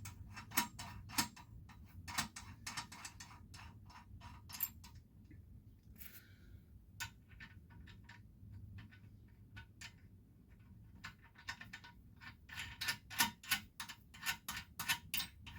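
Hand tools clicking and ticking on metal parts while a minibike wheel is bolted on, a quick irregular run of small clicks. The clicks thin out in the middle and pick up again near the end.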